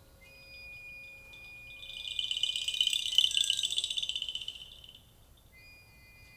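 Test music played through a woofer whose foam surround has been patched with tissue paper: a high, fast-rattling shimmer swells up about two seconds in and fades out by about five seconds, over a faint steady tone.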